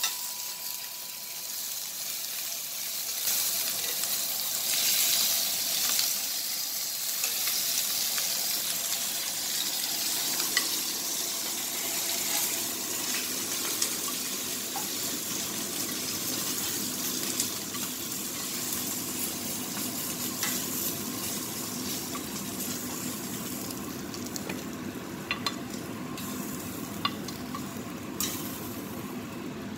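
Lamb chops sizzling in a hot grill pan: a steady frying hiss that thins somewhat near the end, with a few light clicks of metal tongs.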